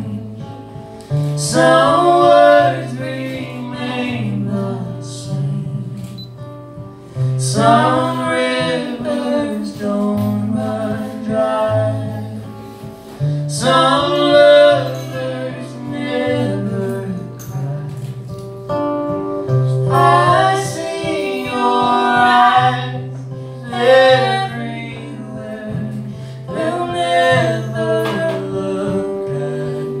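Live duet: a woman and a man singing into microphones over an acoustic guitar, the sung phrases coming every few seconds over steady low guitar notes.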